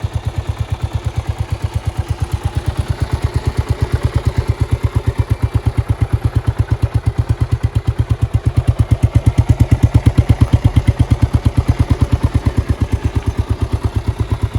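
Honda TLR200's single-cylinder four-stroke engine idling with a steady, even exhaust beat, getting a little louder for a couple of seconds about nine seconds in.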